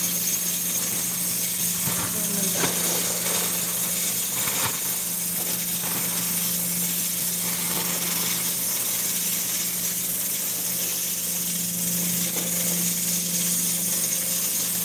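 A wooden spoon stirring in a steel cooking pot, with a few light knocks about two and four and a half seconds in, over a steady hiss and low hum.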